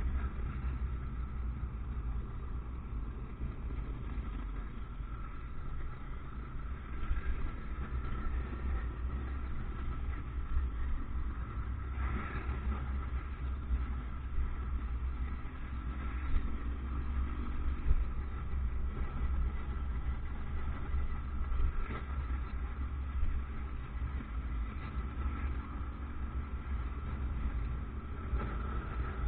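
Motorcycle running while being ridden, a steady low rumble that goes on without a break, with a faint steady higher tone above it.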